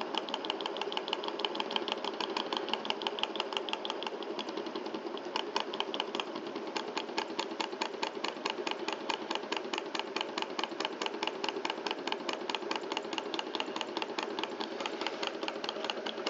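Small Stirling hot-air engine, throttled back and running slowly, giving a steady rapid ticking from its piston and crank linkage. The ticking dips slightly about four seconds in, then comes back stronger and crisper.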